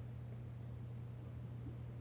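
Quiet room tone: faint hiss over a steady low hum.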